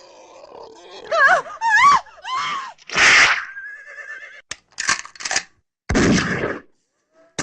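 A rapid string of mixed sound effects: wavering, creature-like cries, then a loud burst of noise, a short steady tone, a few sharp cracks and a heavy hit about six seconds in.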